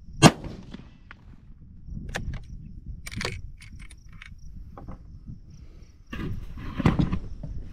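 A single shot from a .270 Winchester Model 70 Black Shadow hunting rifle, a loud sharp crack about a quarter second in, firing a hot Hornady 150-grain SST handload. It is followed by metallic clicks as the bolt is worked to eject the case and chamber the next round, then a stretch of handling noise near the end.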